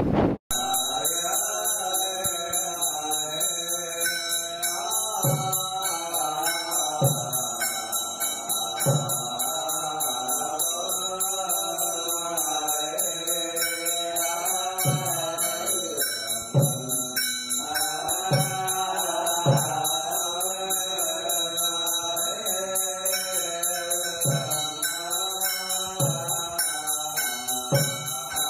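Group chanting, held and gliding voices, over a drum beat every couple of seconds and a steady high jingling like small bells.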